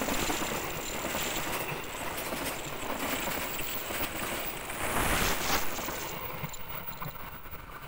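Passenger train coaches passing at speed close by: a steady rumble of wheels on the rails, swelling about five seconds in and then fading.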